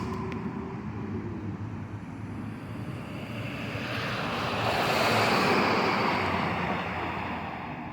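Recycling garbage truck driving past: a low engine rumble under a rush of noise that swells to a peak about five seconds in and then fades as it moves away.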